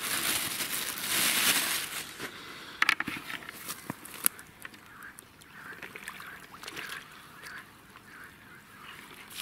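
A two-second rush of rustling, pouring noise, typical of dry groundbait tipped from a bag, then a few sharp clicks. After that, faint short honking calls of waterfowl repeat.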